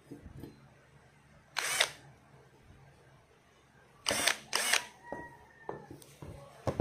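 INGCO 20V cordless drill with a newly fitted DC motor, run in brief trigger blips: one about one and a half seconds in and two close together around four seconds, with light handling knocks in between.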